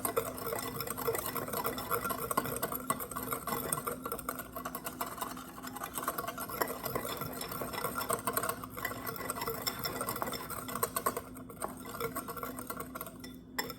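A whisk stirring dry sugar, cinnamon and nutmeg in a cereal bowl: continuous rapid scratching and clicking of the whisk against the bowl.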